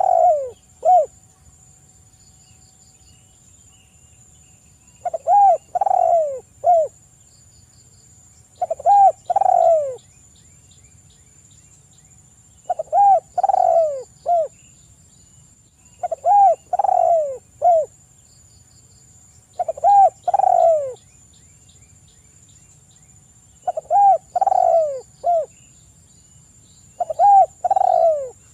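Spotted dove (tekukur) cooing its 'kuk 3' song: a phrase of three or four descending coos, repeated about every three and a half seconds, some eight times.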